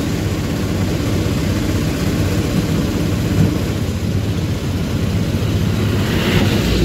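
Steady road noise from an open three-wheeler rickshaw in motion, a low rumble with the wind and traffic around it. An oncoming bus passes close near the end.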